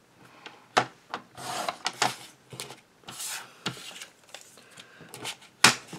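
Paper trimmer cutting a sheet of vellum, then the stiff vellum sheet and its cut-off strip being slid and handled on the trimmer. It is a run of sharp clicks, the loudest about a second in and near the end, with short rasping, crinkly rustles between them.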